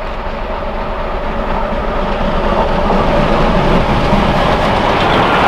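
Merchant Navy class three-cylinder Pacific steam locomotive 35018 British India Line and its train passing at speed. There is a steady rush of noise that grows louder as the engine goes by and its coaches follow close past.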